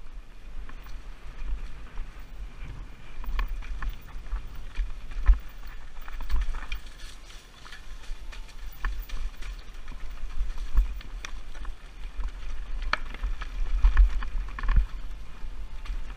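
Mountain bike descending a rough rocky trail: a steady wind rumble on the helmet-mounted camera's microphone, with frequent knocks and clatters of the bike jolting over rocks.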